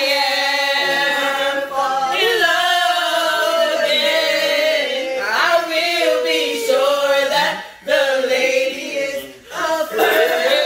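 Women singing loudly together with long held notes, breaking off briefly twice near the end.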